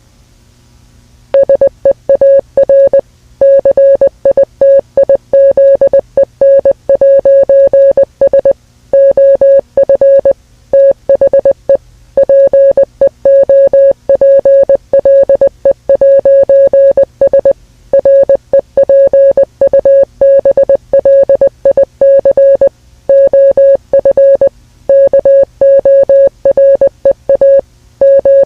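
A loud electronic alert tone of one fixed pitch, switched rapidly on and off in uneven groups of short and longer beeps, starting about a second in after faint static.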